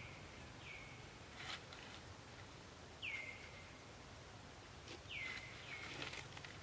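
Several short high-pitched animal calls, each dropping quickly in pitch and then held for a moment, with a few brief crackles of dry leaves being rustled.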